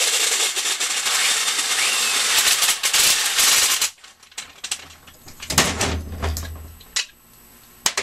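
Electric wrench running for about four seconds, spinning the large nut down onto the alternator's positive battery stud. A second, shorter run comes about five and a half seconds in, and a few light clicks follow.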